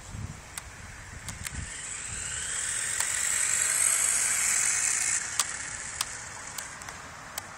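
Tyco Turbo Hopper radio-controlled buggy's electric motor and gears whining as it drives on asphalt, swelling louder as it comes close in the middle and cutting off sharply a little after halfway, with scattered sharp ticks.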